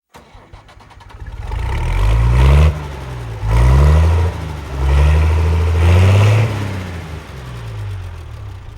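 A large engine revving up and dropping back three times, then settling to a lower, steadier run.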